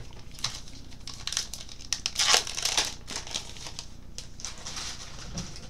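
Foil trading-card pack wrapper being torn open and crinkled in the hands, a run of irregular crackling bursts loudest about two to three seconds in, with more crinkling near the end.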